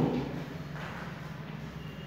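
Chalk being drawn across a chalkboard while writing: a faint, soft scratching of strokes.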